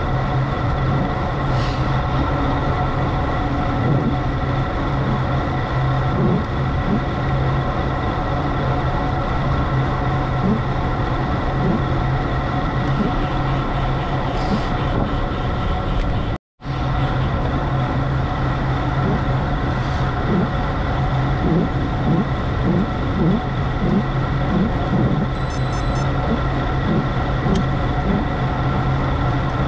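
Steady road and wind noise of a moving road-bike ride, with a constant low hum under it. The sound cuts out for a moment a little past halfway.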